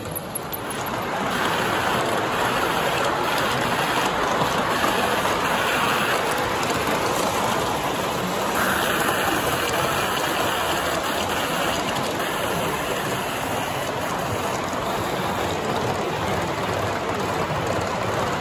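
Model trains' wheels rolling over metal track, a steady rushing rumble that swells about a second in.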